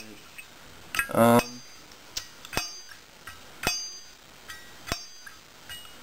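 Zippo lighter lid flipped open and snapped shut several times, sharp metallic clinks with a brief ring, the stiff, freshly tightened hinge being worked loose. A short voice sound about a second in.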